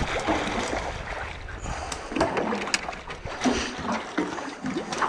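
Water lapping and splashing around a small boat, with a few short, sharp splashes.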